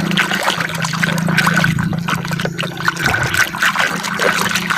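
Water splashing and running as muddy plastic toys are washed, with many small irregular splashes over a steady hum.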